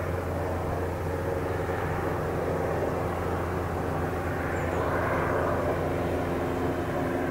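A motor drones steadily in a low hum with several steady tones, the noise of it swelling about five seconds in.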